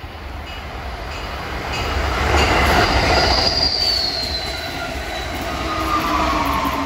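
Amtrak passenger train of Amfleet coaches passing close at speed: steady rumble and rail noise building as the cars go by. A high squealing tone rises about three seconds in and sinks in pitch, and a lower whine falls away near the end.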